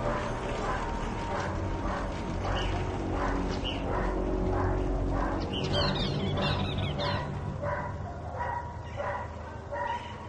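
Dog barking over and over, about two barks a second, over a steady low drone; the barking thins out near the end.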